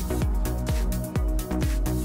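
Background electronic dance music with a steady kick drum, about two beats a second, under sustained synth notes.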